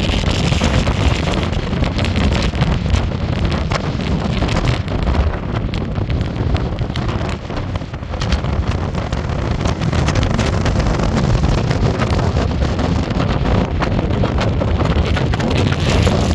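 Wind buffeting the microphone: a loud, steady rushing with irregular crackling gusts.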